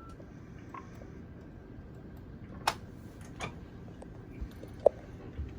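Scattered short clicks and knocks, about half a dozen at uneven intervals over a low steady background hum; the loudest is a sharp click with a brief ring about five seconds in.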